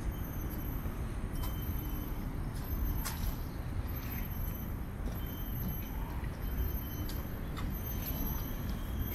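Steady low rumble of distant city traffic, with birds chirping and calling in the trees over it.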